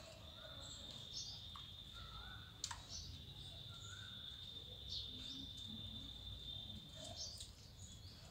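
Faint outdoor background: a steady high-pitched whine that stops near the end, with short bird chirps scattered through it and a few sharp clicks.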